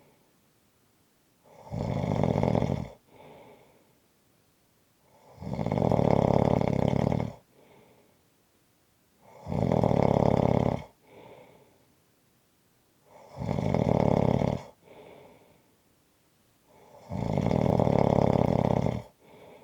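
A person snoring steadily in deep sleep: five loud snores about every four seconds, each followed by a shorter, fainter breath.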